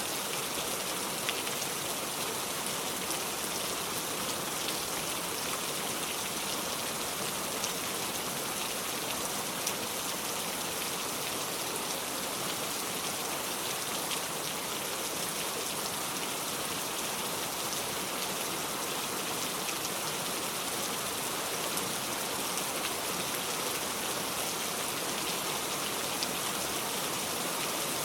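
Heavy rain falling steadily, an even hiss with scattered sharper drop ticks.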